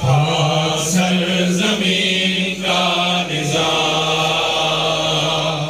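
A group of men singing slowly in unison, one voice into a microphone, with long held notes.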